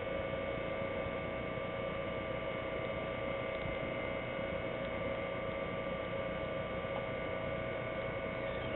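Steady electrical hum with a few fixed whining tones over a low hiss, unchanging throughout.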